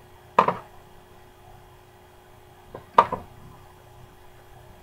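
Two sharp computer mouse clicks about two and a half seconds apart, the second one doubled, over a faint steady electrical hum.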